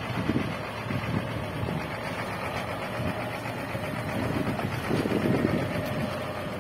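Scania 94D 260 truck's diesel engine running as the truck drives slowly past, a steady low rumble that grows louder about two-thirds of the way through as it comes closest.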